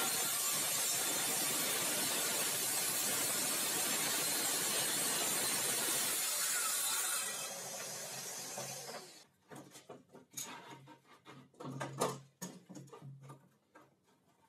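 Handheld circular saw cutting through laminated chipboard: a loud, steady noise for about seven seconds that then drops away. It is followed by a scattered run of knocks and clatters as boards and a clamp are handled.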